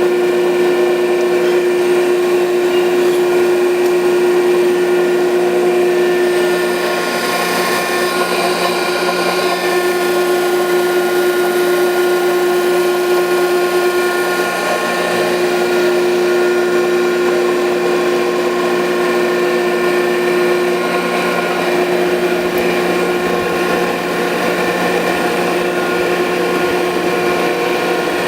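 Landis 1R universal cylindrical grinder running under power: a steady motor hum and whine of several fixed tones, with a brief hiss about seven seconds in.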